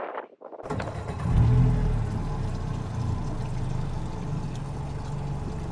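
Small boat's outboard motor running steadily under way across choppy water. It comes in suddenly just after the start and is loudest about a second and a half in.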